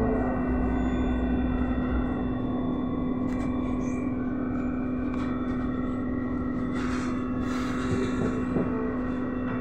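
Cabin sound of a BKM 321 trolleybus under way: a steady electrical hum from its equipment, holding one pitch over a low road rumble, with a couple of short rattles in the last few seconds.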